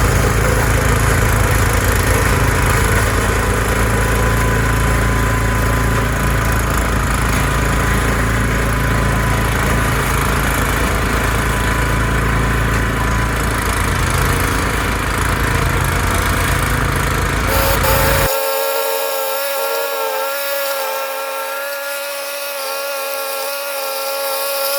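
Ariens 624E snowblower engine running steadily. About three-quarters of the way through, the sound changes abruptly to a thinner, higher steady whine with no low rumble.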